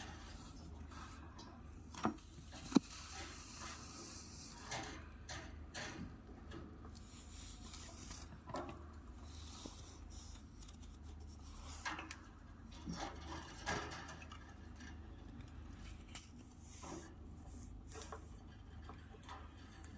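Budgerigar pecking at a millet spray and cracking the seeds: small, irregular clicks and taps, with two sharper knocks about two and three seconds in, over a steady low hum.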